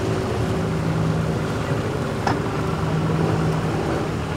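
A boat engine running steadily at low speed, with a single sharp click about halfway through.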